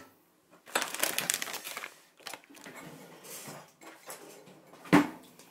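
Kitchen handling noises: a dense run of crackling about a second in, lasting about a second, then a single sharp knock near the end.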